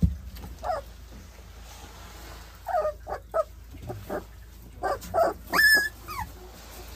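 Pungsan puppies whimpering and yipping in a scatter of short, high calls, one louder and higher than the rest near the end. A low thump right at the start.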